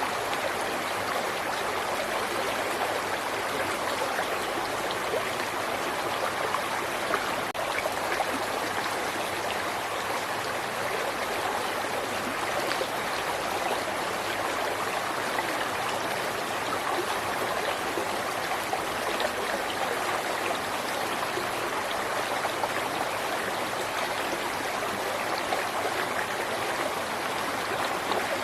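River water flowing and babbling steadily over rocks, a continuous even rush.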